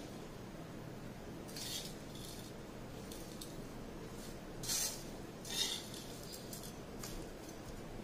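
A steel spoon scraping and clinking against a coated kadhai while tossing chopped chillies with pickle spices. There are a few short scrapes, the loudest two about five and five and a half seconds in.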